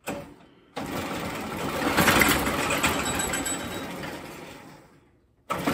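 A series-wound DC forklift motor spinning the spider coupler and the tractor's transmission input shaft. It starts suddenly under a short burst of power, then fades as it coasts down, and starts up again near the end. The coupler is not straight, so the shaft wobbles as it turns.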